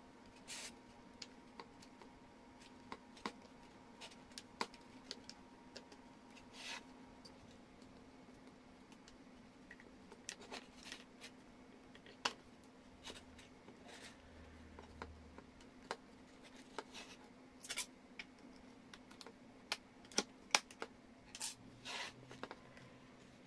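Hard plastic housing parts of a steam iron being handled and fitted together: scattered clicks and taps, with a few short scrapes, over a faint steady hum.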